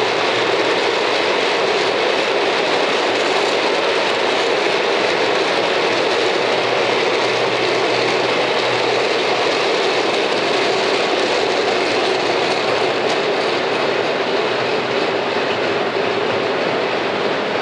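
OO gauge model train of open wagons rolling along the track: a steady rushing rattle of small wheels on rail, easing slightly near the end as the last wagons pass.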